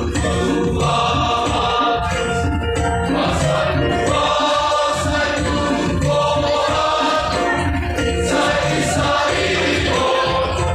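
A choir singing a hymn in part harmony, with held, sustained chords.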